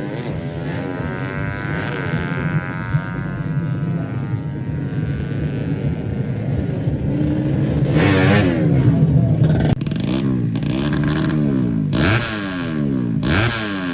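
Tuned 130cc four-stroke underbone drag motorcycle engines: one running with its pitch falling away over the first several seconds, then, from about eight seconds in, an engine revved in quick repeated throttle blips, rising and dropping about once a second.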